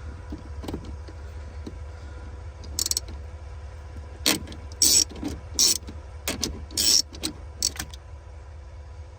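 Hand wrench working on a car battery terminal clamp as it is snugged down: a series of short, sharp metallic clicks and clanks, most of them in a flurry from about four seconds in to near the end, over a steady low hum.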